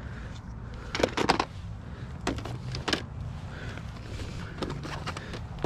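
Plastic CD jewel cases clacking against each other in a bin as they are flipped through by hand: a scatter of sharp clicks, several in quick succession about a second in, with a steady low rumble underneath.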